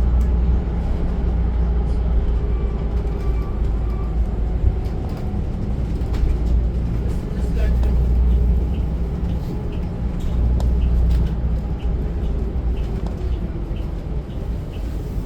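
Inside a moving city bus: a steady deep rumble of engine and road noise that swells and eases with the bus's speed. From about halfway in, a faint regular ticking sounds over it.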